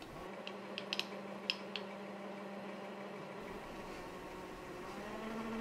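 Mini lathe running with its spindle turning, a steady hum, while a countersink in the tailstock chamfers the bore of an aluminium part. A few light ticks in the first two seconds.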